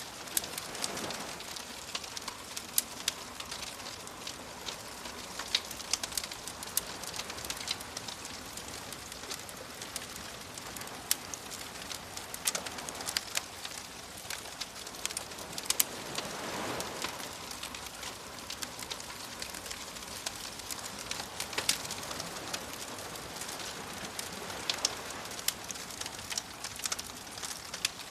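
Wood fire crackling with frequent sharp pops, over soft ocean waves that swell and wash in slowly a few times.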